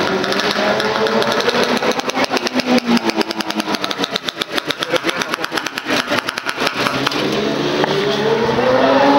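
Classic racing motorcycle engine running at low revs, its firing strokes heard one by one. Near the end the engine note rises and gets louder.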